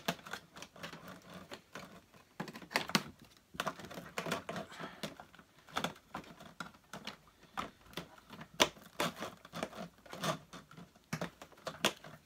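Irregular sharp clicks and knocks of hard plastic as an Electrolux The Boss vacuum cleaner's body and hose are handled, some in quick clusters, with one louder knock a little past the middle.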